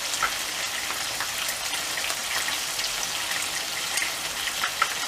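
Köfte (ground-meat patties) frying in a pan: a steady sizzle with many small crackles, and a couple of sharper pops near the start and near the end.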